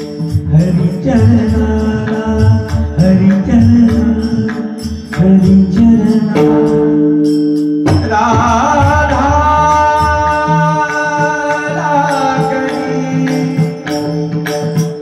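Marathi devotional kirtan music: male voices singing over a steady harmonium drone, with a barrel drum beating and small hand cymbals jingling. About eight seconds in, the drumming thins out and the lead voice settles into long held notes.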